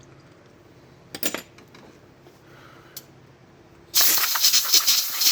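Short metallic clicks and clinks of a hydraulic roller lifter being worked with a pick to free carbon buildup, then about four seconds in a loud hiss of a compressed-air blow gun blasting into the lifter for about two seconds before cutting off.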